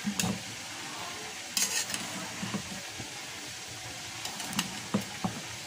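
Metal slotted spatula mixing steamed (dum) cooked rice in a steel pan, with irregular scrapes and clinks against the pan over a steady hiss.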